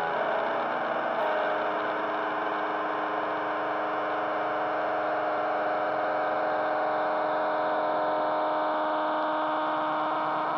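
Electric guitar through the TondemoBender β2, a homemade Tone Bender-style germanium transistor fuzz with its attack knob at maximum: one long held note sustaining at an even level under a gritty fuzz noise, its pitch shifting slightly about a second in.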